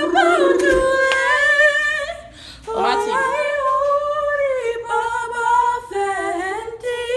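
Female voices singing a cappella, held notes with vibrato, with a short break about two and a half seconds in.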